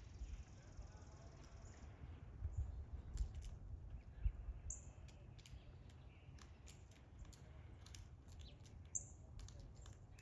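Faint small-bird chirps over a low, uneven rumble and scattered light ticks. Two short, high chirps stand out, one about halfway through and one near the end.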